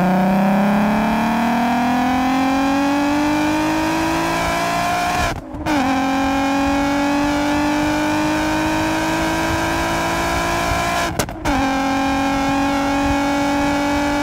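Supercharged 3.2-litre V6 engine of a VW Caddy van under hard acceleration, heard from inside the cabin, its note rising steadily with the revs. The sound cuts out briefly twice, about five and eleven seconds in, as it changes up a gear, and each time the pitch restarts lower and climbs again.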